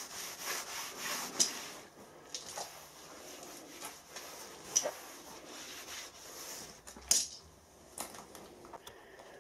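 Cloth wiping back and forth across a milling machine's steel table, a soft rubbing hiss in strokes, with a few light knocks, the sharpest about seven seconds in.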